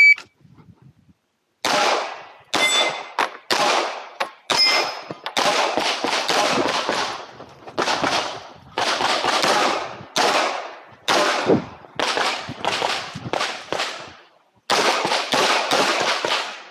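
Glock 17 9mm pistol firing rapid strings of shots on a timed practical shooting stage, starting about a second and a half in, with short pauses between strings and one longer pause near the end.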